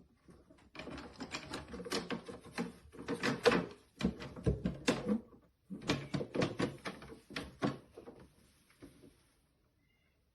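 Plastic cat flap clicking and clattering in two quick runs of rapid knocks, each a few seconds long, dying away to a few stray clicks near the end.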